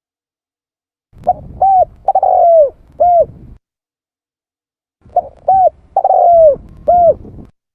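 Spotted dove cooing: two identical phrases, each about two and a half seconds long, made of a few short coos around one longer falling coo, with dead silence between them.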